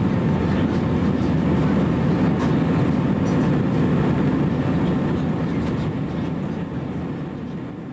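Steady cabin roar of an Airbus A320 in flight, engine and airflow noise heard from inside the cabin over the wing. It fades out gradually near the end.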